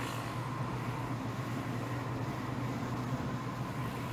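Steady engine and road noise heard inside a moving car's cabin, with a low, even hum.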